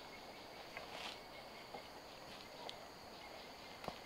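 Faint, steady, high-pitched insect chorus, with a few light footsteps and rustles in vegetation and a sharper click near the end.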